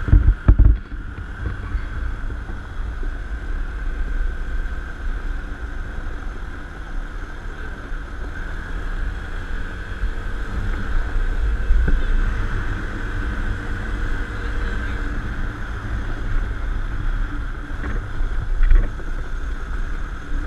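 Small ATV engine running as it is ridden along a gravel track, under heavy wind buffeting on the handlebar-mounted camera's microphone. The buffeting is loudest in the first second.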